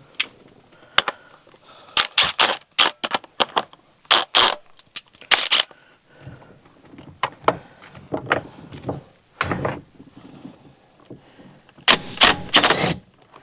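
Socket ratchet with a 24 mm socket clicking in short bursts while it loosens the steering wheel retaining nut, with scattered metal clinks of the tools.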